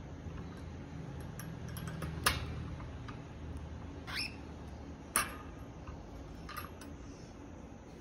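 Pet cockatiels making a few small sounds: two sharp clicks and a short squeak that rises in pitch, with a fainter squeak later, over a low steady hum.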